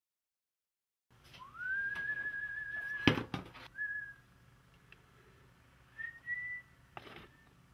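A person whistling a few short notes: the first slides up and is held for about a second, a brief one follows, and a slightly higher one comes near the end. A sharp click about three seconds in and a knock near the end.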